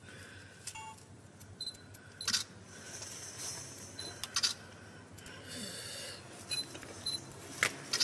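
Spatula working metal-repair putty onto a finned pipe: irregular sharp clicks and taps with light scraping in between, and a few short high squeaks, over a steady low hum.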